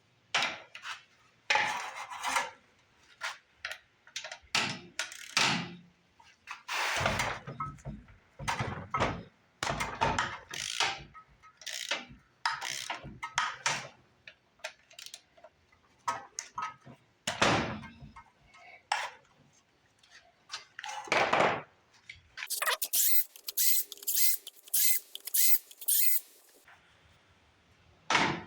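Metal knocks and clanks of hand tools and bolts being handled while the crankcase cover bolts of a Briggs & Stratton engine are removed, with a run of sharp clicks about two a second for a few seconds near the end.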